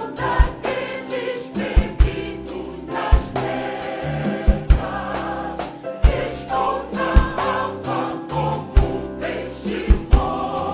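Gospel choir singing with band accompaniment, over a steady beat of low drum thumps and cymbal clicks.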